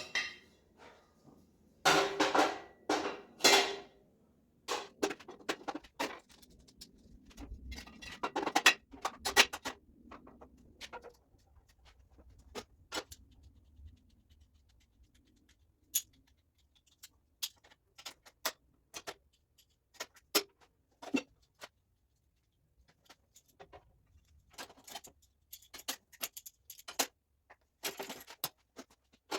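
Intermittent clinks, clicks and rattles of tools and small metal objects being handled, with a burst of louder clattering about two to four seconds in, as in rummaging for a tool.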